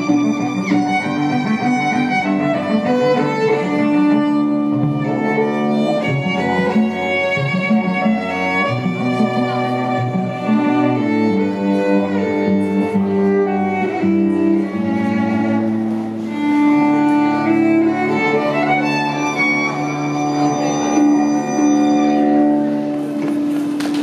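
String music: violin and cello playing a melody in long held notes over a lower line.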